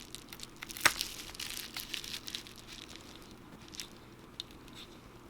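Cracked iPhone 7 Plus screen glass crackling and crunching as it is pried up from the phone's frame. There is one sharp snap about a second in, and the crackles grow sparser later.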